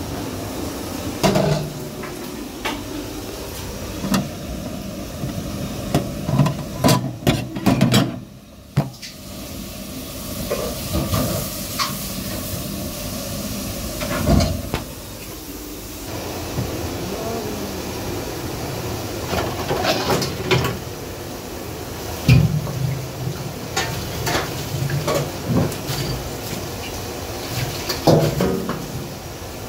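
Restaurant work clatter: irregular knocks and clunks of things being handled and set down, over a steady background hum.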